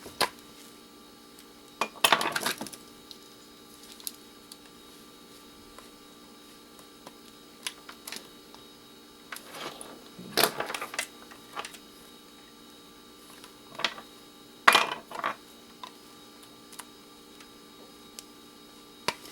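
Clicks, knocks and short rattles of a dead mixer's housing being handled and turned over while searching for its screws, in three brief clusters with quieter gaps and single clicks between.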